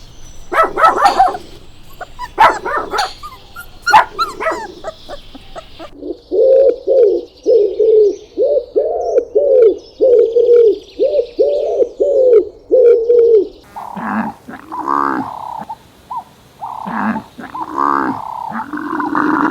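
Dogs barking in a run of edited clips: sharp, close barks for about six seconds, then about a dozen evenly spaced barks, then higher whining and yelping calls near the end.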